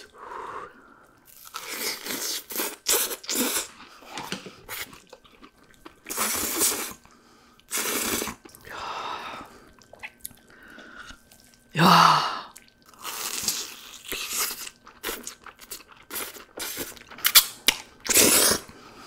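Close-miked crunching and chewing of crispy fried snacks coated in melted cheese, in irregular bites and chews.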